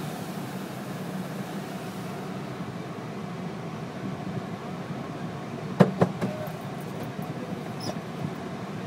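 Steady rumble and hiss of an automatic car wash heard from inside the car's cabin, with two sharp knocks close together about six seconds in.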